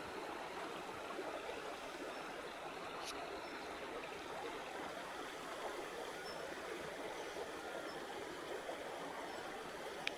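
Wood campfire burning: a steady dense crackle, with a sharp pop about three seconds in and another just before the end.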